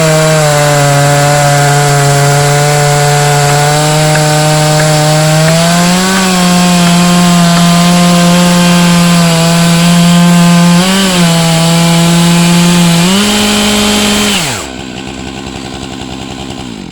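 Chainsaw in an Alaskan chainsaw mill running at full throttle as it rips lengthwise through a long log, its pitch lifting slightly a few times. Near the end the revs drop to a lower idle as the cut finishes.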